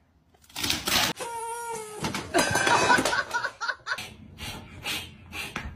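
A person laughing in short repeated bursts, mixed with other brief voice sounds.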